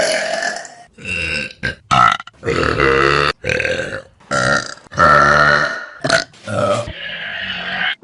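A rapid string of about ten loud belches from different people, one after another, some short and some drawn out for nearly a second.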